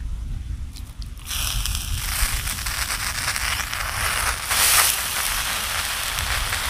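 Water sprinkled by hand onto broken rice in a hot karahi, sizzling from about a second in. It is the extra water added because the first water dried off before the rice was cooked through.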